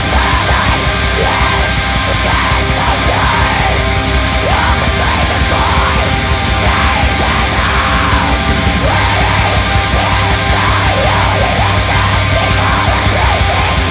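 Loud post-black metal (blackgaze) music: a dense, unbroken wall of distorted guitars and drums.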